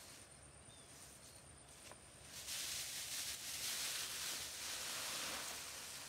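Rustling noise that starts about two and a half seconds in and then goes on evenly, over a faint steady high-pitched tone.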